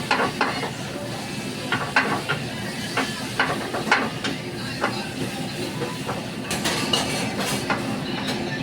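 Food frying in hot oil: a steady sizzle with frequent irregular crackles and pops.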